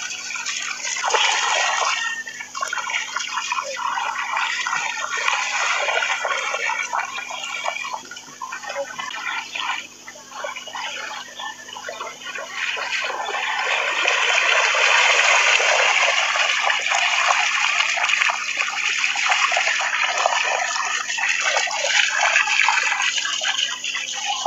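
Shallow seawater rushing and splashing, a continuous hiss that rises and falls irregularly and grows louder about halfway through.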